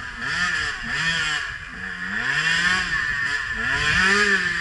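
Dirt bike engine revving up and down as it is ridden along a muddy, rutted trail, its pitch rising and falling every second or so and growing louder toward the end as the bike comes closer.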